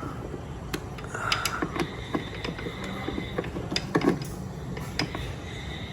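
Irregular light clicks and knocks of an air filter and its metal mounting plate being handled and fitted, with a brief rustle about a second in and the sharpest knock about four seconds in.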